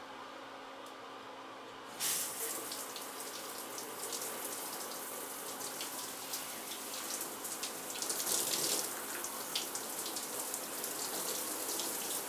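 A shower is turned on suddenly about two seconds in, and its water sprays and splatters steadily against the stall and the person standing under it.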